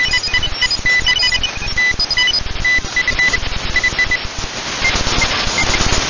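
Shortwave receiver tuned to 14.015 MHz in the 20-metre amateur band, picking up several Morse code (CW) signals at once: short and long beeps at different pitches over static hiss. Past the middle the hiss grows louder and the beeps thin out to an occasional one.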